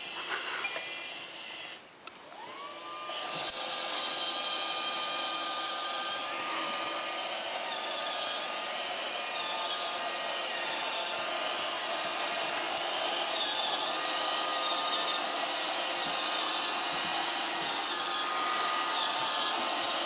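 Roomba robot vacuum starting up about two seconds in: its motor whine rises and levels off, and then it runs steadily with the vacuum and brush noise.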